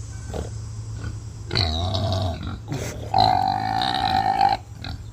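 Pig giving two drawn-out, grunting squeals, the second one longer.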